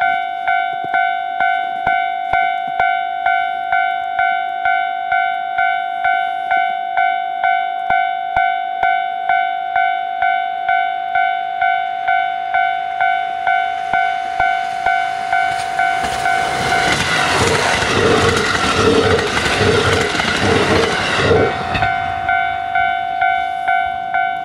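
Electronic level crossing alarm ringing steadily, about two rings a second. A diesel express train passes about two-thirds of the way in, and its running noise swells over the bell for several seconds before fading.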